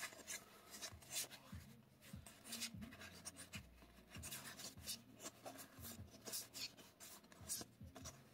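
Magic: The Gathering trading cards being slid and flipped through by hand, with faint, irregular rustles and soft flicks of card stock.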